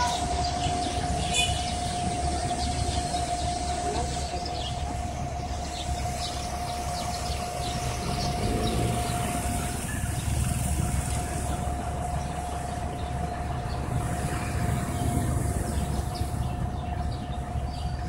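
Steady low machine rumble with a constant whining tone held on one pitch, the whine growing weaker about halfway through.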